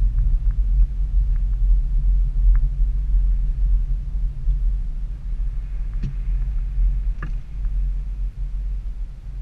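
Steady low rumble of a vehicle driving over a slushy, rutted road, with two sharp knocks about six and seven seconds in. It grows quieter near the end as the vehicle slows.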